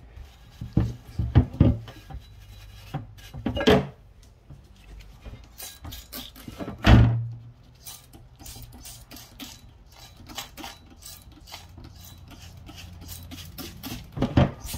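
A brush scrubbing the wet aluminium valve body of a GM 6L80 transmission in short strokes, with light clicks and a louder knock about seven seconds in. A faint low hum runs underneath.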